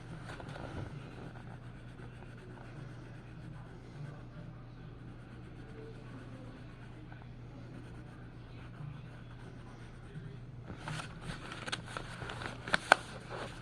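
Faint scratchy rubbing strokes of an art tool on paper over a steady low hum. Near the end come a run of louder scraping strokes and two sharp clicks.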